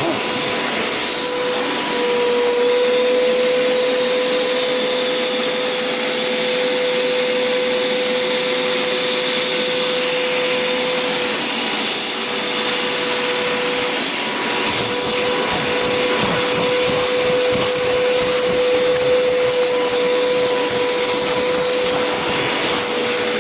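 Hoover Power Scrub Deluxe carpet cleaner running steadily with a constant motor whine, its upholstery tool suctioning a cloth couch.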